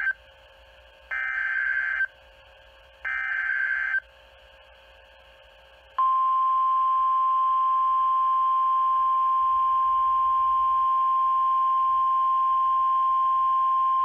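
NOAA Weather Radio alert coming through a Midland weather radio's speaker: the tail of one screechy EAS/SAME digital header burst, then two more, each about a second long and a second apart. After a two-second pause, the steady single-pitch 1050 Hz warning alarm tone starts and holds, signalling that a severe thunderstorm warning is about to be read.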